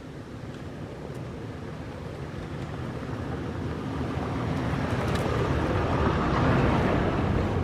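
A vehicle driving past, its engine and tyre noise rising steadily to a peak near the end and then starting to fade.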